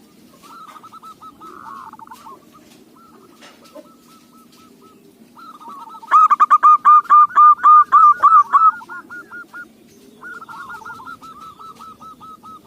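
Zebra doves (perkutut) calling: runs of rapid, staccato cooing notes, with one loud, close run of about a dozen notes in the middle, among quieter overlapping calls from other doves.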